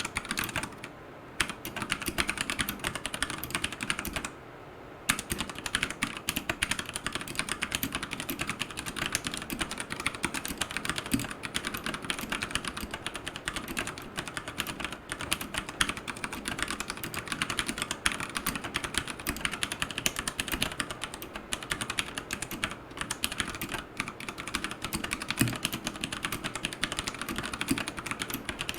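Fast, continuous typing on a Royal Kludge RK100 mechanical keyboard with tactile brown switches and AKKO clear keycaps: a steady stream of key clacks with two short breaks, about a second in and between four and five seconds in.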